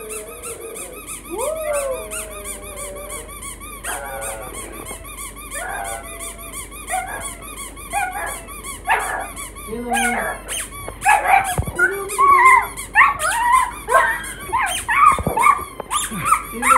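Pug whining and yapping excitedly at a rubber squeaky toy dangled above it, mixed with the toy's squeaks; the calls come thicker and louder in the second half.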